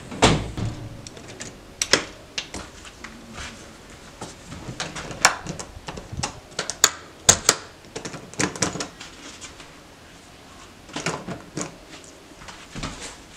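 A front door is pushed shut with a heavy thud, followed by a scattered series of sharp metallic clicks from its knob lock and deadbolt being worked.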